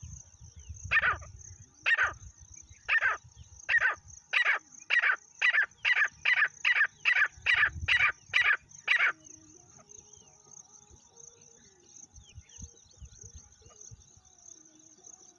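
Francolin (teetar) calling: a series of harsh notes, about a second apart at first and speeding up to roughly three a second, then stopping about nine seconds in. A steady high-pitched drone runs underneath.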